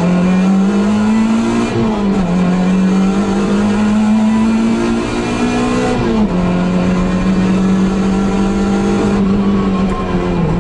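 Suzuki Swift GTi rally car's 1.3-litre twin-cam four-cylinder engine at high revs, heard from inside the cabin. Its note climbs under acceleration and drops sharply on upshifts about two seconds and six seconds in, then falls near the end as the driver lifts off.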